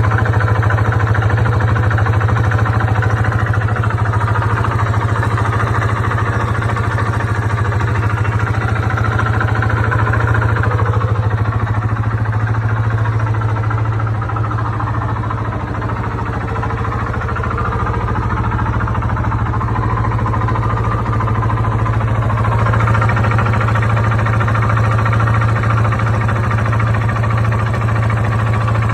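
Yamaha Warrior 350 ATV's single-cylinder four-stroke engine running steadily with a knocking sound, which the owner suspects comes from the engine's lower end. It eases off a little about halfway through, then comes back up.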